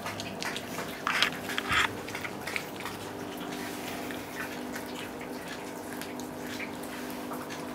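A dog and a cat chewing raw oxtail bones: irregular wet clicks and smacks, loudest about one to two seconds in.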